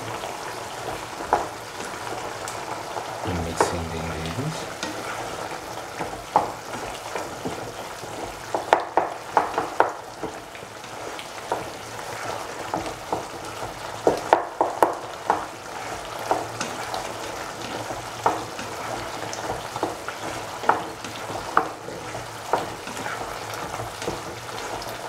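A spatula stirring bottle gourd and tomato stew in a sizzling pan: a steady sizzle with sharp clicks and scrapes of the spatula against the pan, bunching up about a third of the way in and again just past halfway.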